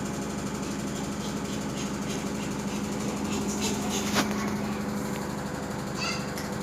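A steady low hum holding one pitch, with a single sharp click about four seconds in.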